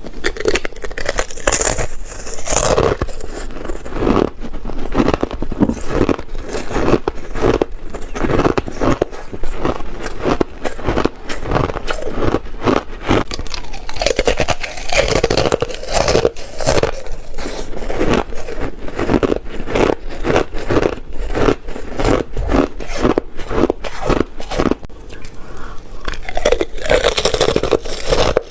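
Thin ice being bitten and chewed close to the microphone: a dense run of sharp, crackling crunches, one after another, continuing throughout.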